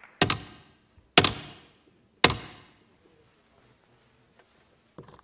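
Marshal's staff (laska marszałkowska) of the Polish Sejm struck three times on the floor, about a second apart, each strike echoing briefly in the chamber: the ceremonial signal that closes the sitting.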